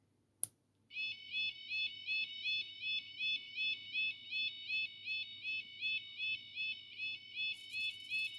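A sharp click of a tactile push button, then a level-crossing warning alarm played from a DY-SV5W MP3 sound module's small speaker: a recording of a real crossing's alarm, a high warbling tone pulsing about three times a second. Near the end a faint high buzz joins in.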